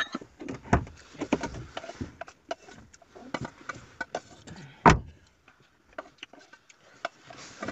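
Scattered clicks, taps and knocks of lunch containers and utensils being handled in a car cabin, with one sharper knock about five seconds in.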